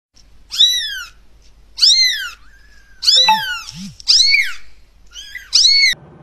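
Young grey kitten meowing: about six high-pitched meows in a row, each rising and then falling in pitch.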